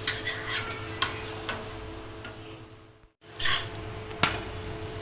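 Steel spatula scraping and clicking against a cast-iron tawa as a wheat parotta is lifted and flipped: a few sharp clicks and a short scrape, over a steady low hum. The sound cuts out for a moment about three seconds in.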